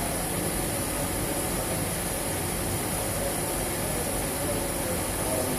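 Steady machinery noise: an even hiss with a low hum and a faint high whine that does not change.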